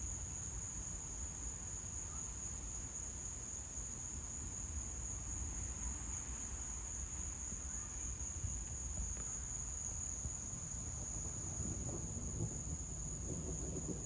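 Steady, high-pitched chorus of night insects, with a low rumble underneath that grows stronger near the end.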